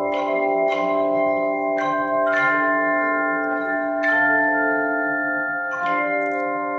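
Handbell choir playing: several bells are rung together as chords and left to ring on, with new bells struck every second or two.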